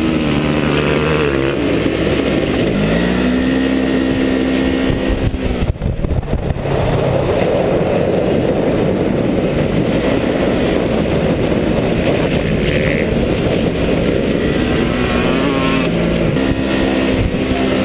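Dirt bike engines and the engine of the RZR side-by-side carrying the camera, running at speed, over a dense steady noise. The engine pitch climbs and then holds twice, in the first few seconds and again near the end. The sound briefly drops out about six seconds in.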